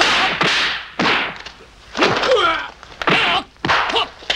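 Film fight sound effects: a series of sharp punch and body-blow impacts, about five in four seconds, with short grunts and shouts of effort between them.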